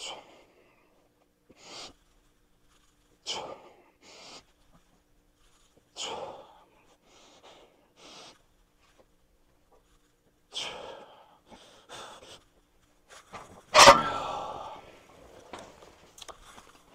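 A man's forceful exhales and gasps, one every second or two, while he lifts a weight set to failure. About fourteen seconds in comes one loud knock with a brief ring after it.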